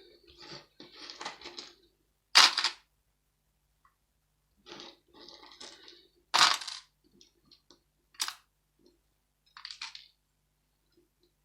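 Small steel and iron scrap pieces from dismantled light switches clattering and clinking as they are handled and dropped. A stretch of rattling at the start, then separate sharp metallic clinks, the loudest about two and six seconds in.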